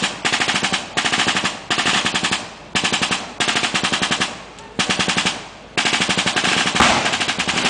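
Machine-gun fire in short bursts of rapid shots with brief gaps between them, about eight bursts; the longest, nearly two seconds, comes near the end.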